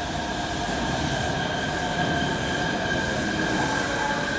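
Chiba Urban Monorail Series 0 suspended monorail train pulling in alongside the platform, running with a steady high whine from its Mitsubishi IGBT VVVF inverter drive.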